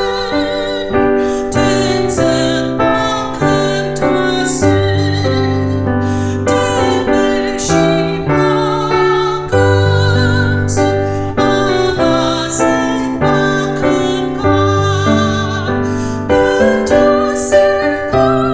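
Piano music: a slow piece of sustained chords and notes on a piano or keyboard.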